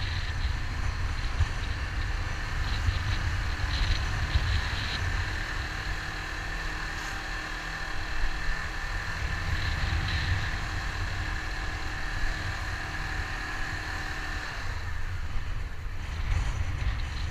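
Honda CBR500R parallel-twin engine running as the motorcycle cruises along, with steady wind rumble on the bike-mounted microphone.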